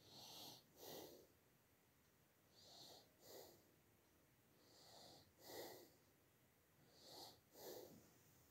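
Faint breathing close to the microphone: four slow in-and-out pairs of breaths, one about every two seconds.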